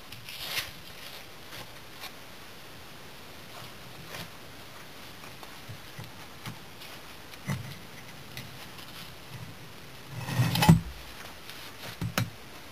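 Refractory kiln slabs and brick being handled on gravel: a few scattered scrapes and knocks, with the loudest cluster about ten and a half seconds in and two sharper knocks just after.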